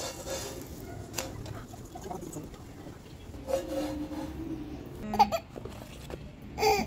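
Short bursts of laughter and babbling voice over a low steady background noise, the loudest burst near the end.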